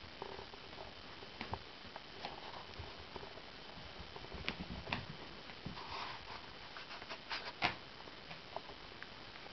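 Faint scattered patter and scuffs of a Persian kitten's paws on carpet as it scampers about, over a steady hiss, with a few sharper clicks about three quarters of the way in.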